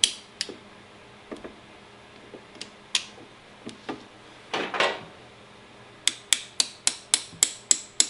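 Metal clicks as the brake pads and retaining pin are handled in a motorcycle front brake caliper, then a run of sharp metallic taps, about four a second, in the last two seconds: the pad retaining pin being tapped home.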